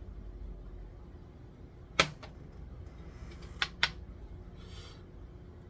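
Three sharp clicks over a low steady hum: one loud click about two seconds in, then two quick clicks close together near four seconds, followed by a soft brief rustle.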